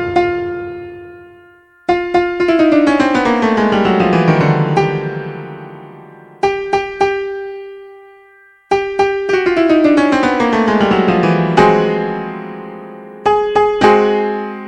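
Piano-like keyboard music: a few quick repeated chord stabs, then a long run of notes stepping down in pitch. The pattern comes twice, with short pauses between phrases.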